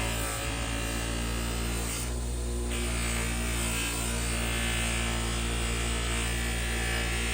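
Old bench grinder motor running with a steady hum, and a steel knife blade held against the spinning wheel making a continuous grinding hiss. The hiss stops for a moment about two seconds in, as the blade comes off the wheel.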